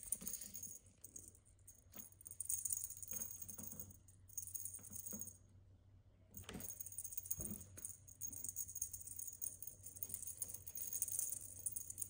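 Feather wand cat toy jingling and rattling as it is jerked about, in two long stretches with a brief break about halfway through, mixed with soft knocks of paws against the cat tree.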